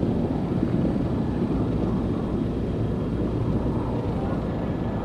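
Steady low rumbling noise on an outdoor microphone, with no clear rhythm or tone.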